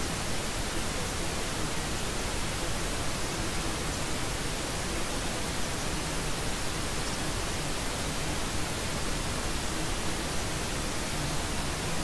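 Steady white noise: an even, unchanging hiss across all pitches.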